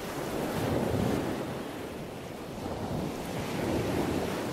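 Waves washing: a steady rush of water noise that swells about a second in and again near the end.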